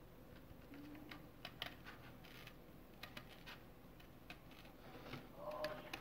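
Scissors snipping through a printed paper card: a series of faint, irregular snips and paper rustles, with a brief squeak near the end.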